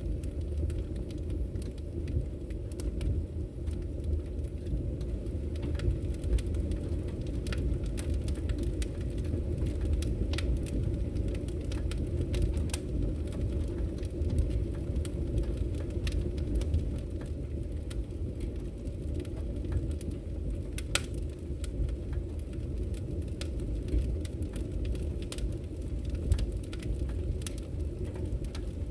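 Wood fire burning in a fireplace: a steady low rumble with sharp crackles and pops at irregular intervals, one louder pop about two-thirds of the way through.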